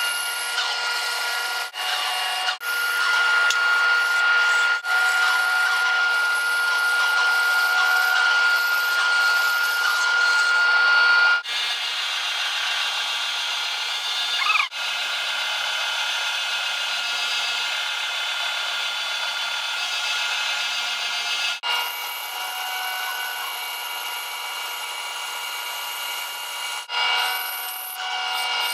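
Bandsaw running and cutting maple: a steady whine over the hiss of the blade in the wood, broken off abruptly several times and picking up again.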